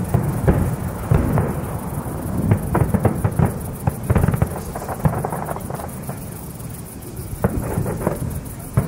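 Fireworks display shells bursting in rapid, overlapping bangs over a rolling low rumble. The bangs thin out for a moment about six seconds in, then pick up again near the end.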